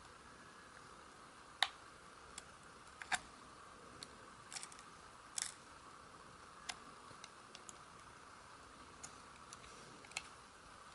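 Flat-head screwdriver prying at a dashcam's plastic case: scattered, irregular sharp clicks of the blade working the seam, over a faint steady hiss.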